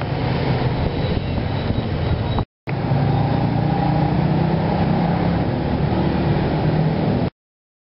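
Steady street-traffic noise with a low engine hum. It drops out briefly about two and a half seconds in and cuts off abruptly to silence near the end.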